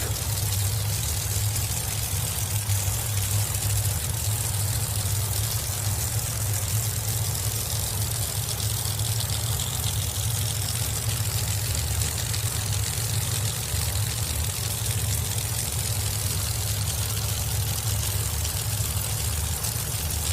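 Pro Modified drag-racing engines idling steadily at the starting line while the cars stage.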